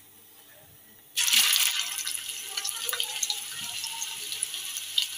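Hot oil in a frying pan starts sizzling suddenly about a second in as a minced-chicken seekh kebab goes in, loudest at first and then a steady sizzle with small crackles.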